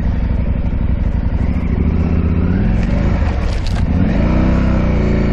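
KTM 890 Adventure R's parallel-twin engine running at low trail speed, its revs rising and falling from about halfway through, with a few sharp knocks in the middle.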